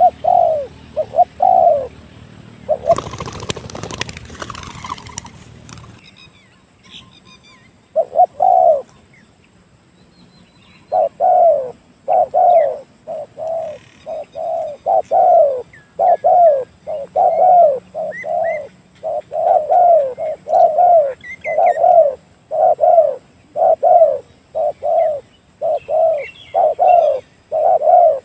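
Spotted dove (tekukur) cooing, short hoarse coo notes in runs, broken about three seconds in by a few seconds of rustling noise and a pause, then cooing steadily and repeatedly. Faint chirps of small birds can be heard now and then.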